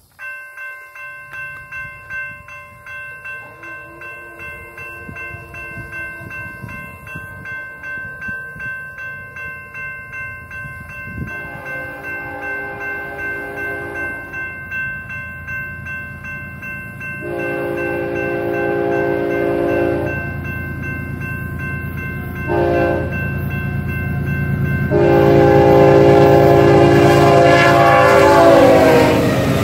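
Grade-crossing signal bell ringing steadily as the crossing activates. A BNSF freight locomotive's horn then sounds the crossing pattern of two long blasts, a short one and a long one, over the engine's rumble, which grows as it approaches. As the locomotive passes, the horn's pitch drops near the end.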